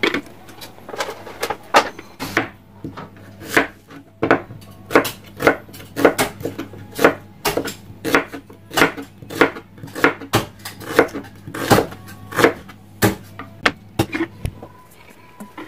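Knife slicing an onion on a cutting board, a steady run of chops about two a second.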